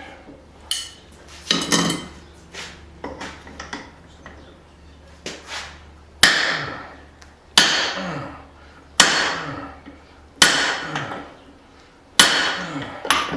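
Hand hammer striking a slitting punch into hot steel on an anvil: five heavy blows about a second and a half apart, each ringing out, after a few lighter metal clanks in the first seconds.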